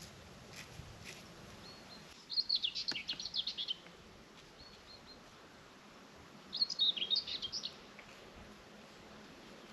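A songbird singing two short phrases of rapid, high twittering notes a few seconds apart, over a faint steady outdoor background.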